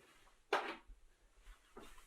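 A few short knocks or clinks: a clear one about half a second in and a fainter one near the end, with small ticks between.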